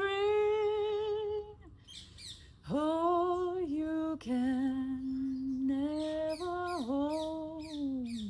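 A woman's voice holding a long sung note, then after a short pause humming slow held notes at a lower pitch. Birds chirp over it in quick falling chirps, many in a row in the second half.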